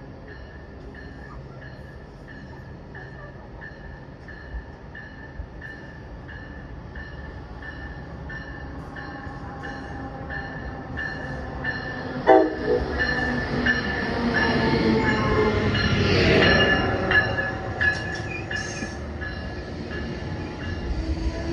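Amtrak ACS-64 electric locomotive and Amfleet coaches pulling into the station: the train's rumble grows steadily louder, with a bell dinging about twice a second in the first half. A brief horn blast sounds a little past halfway, and the loudest rush comes as the locomotive passes close, about three quarters of the way in.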